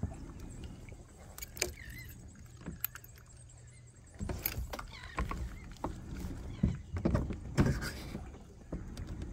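Water lapping and splashing against the plastic hull of an Old Town kayak as it moves, with scattered light knocks on the hull and a few louder splashy stretches in the second half.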